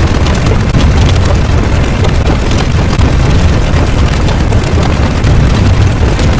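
A loud, continuous low rumble with crackling over it, a sound effect like a sustained explosion or eruption.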